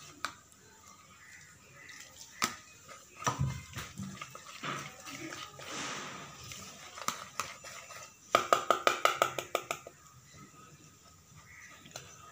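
A flour, coconut and milk batter being mixed by hand in a plastic bowl, with scattered knocks and soft wet mixing noises. A quick run of about a dozen sharp taps comes a little past the middle.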